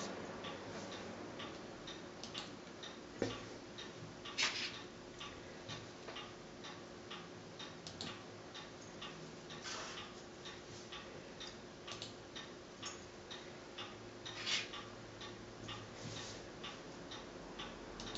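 A clock ticking steadily, about two ticks a second. A few louder clacks stand out over it, as draughts pieces are set down on the wooden board.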